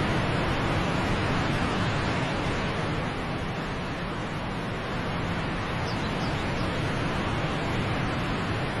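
Steady rushing noise, like an outdoor ambience of moving water or wind, with a few faint high chirps about six seconds in.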